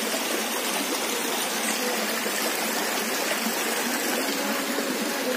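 Shallow rocky forest stream flowing, a steady, even rush of water.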